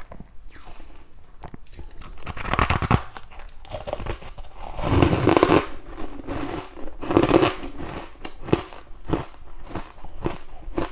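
Freezer frost being bitten and chewed, giving crackly crunching in three louder spells about two, five and seven seconds in, with scattered small crunches between.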